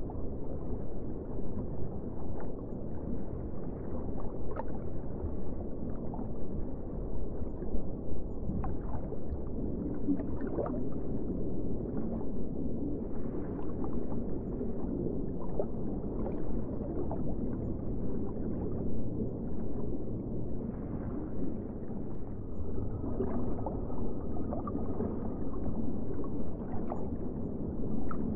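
Underwater ambience: a steady, muffled low rumble of water with frequent small bubbling gurgles.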